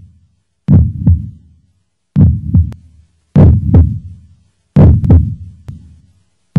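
Heartbeat sound effect: heavy, deep double thumps (lub-dub) repeating slowly, about one beat every second and a half, with silence between the beats.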